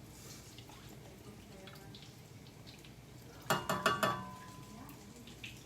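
A metal utensil clinking against cookware, a quick run of four or five strikes with a short ringing tone, about three and a half seconds in, over a faint low background.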